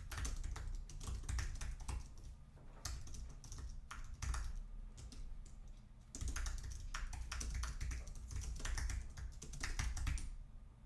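Typing on a computer keyboard: quick runs of key clicks, with a short lull about halfway through and then a steady burst of fast typing.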